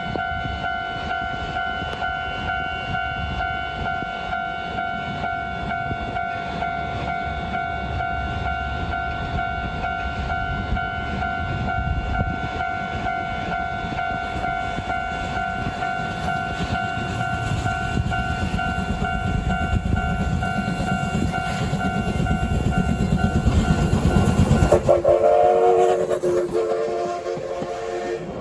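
A Japanese level-crossing warning bell rings steadily while a train rumbles past over the rails, the rumble building as it nears. About three seconds before the end the bell and the rumble stop together and a train whistle sounds to the end.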